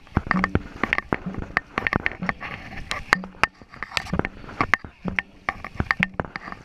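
Dragon boat crew paddling at race pace: paddles clacking and splashing through the water, with a short low knock about once a second keeping the stroke rhythm.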